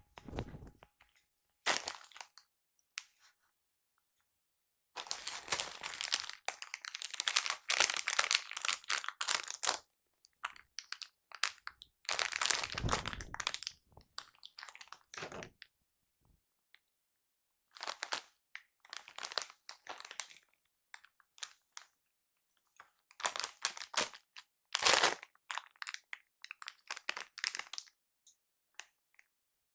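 Foil snack bag crinkling and crunching in several bursts as a hand rummages inside it.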